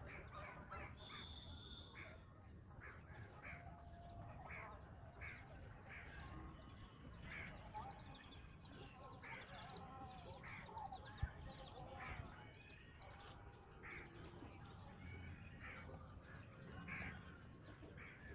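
Sparrows chirping over and over in short notes, faintly, with one sharp tap about eleven seconds in.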